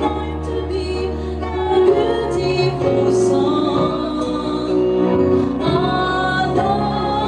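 A woman singing a worship song over instrumental accompaniment with a steady bass line.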